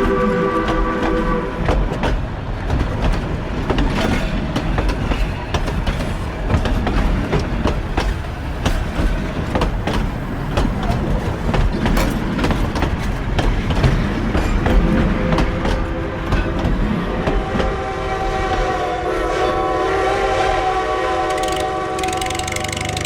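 Train passing, its wheels clattering in rapid clicks over the rail joints. Its multi-note horn sounds briefly at the start and again for about five seconds near the end.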